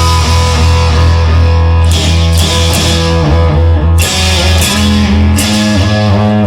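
Rock music with distorted electric guitar, bass and drums, instrumental with no singing; the bass line changes about five seconds in.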